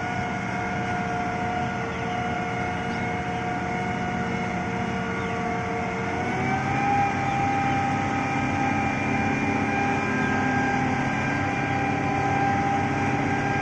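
Preet 987 combine harvester's engine running with a steady whine as the machine pulls through mud at the field edge. About six and a half seconds in, the pitch steps up and it gets a little louder, then holds steady.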